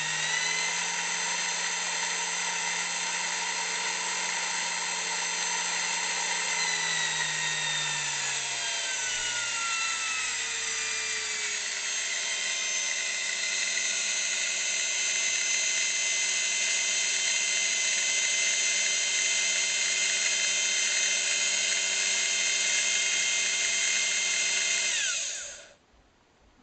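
High-speed precision drill press running with a high, many-toned whine. Its pitch glides down between about 6 and 12 seconds in, then holds steady. About 25 seconds in it is switched off and quickly runs down to quiet.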